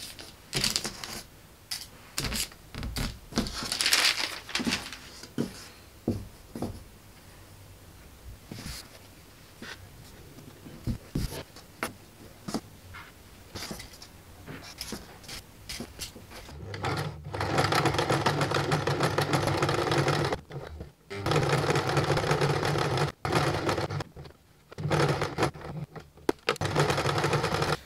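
Fabric being handled and pinned, with small rustles and clicks. About two-thirds of the way in, a Janome 1 Step 2319S sewing machine starts and runs in several short spells with brief stops, basting the lining to the bodice fabric.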